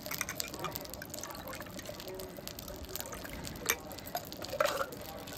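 Milk sharbat being ladled from a clay pot and poured into a drinking glass, with a single sharp clink about two-thirds of the way through.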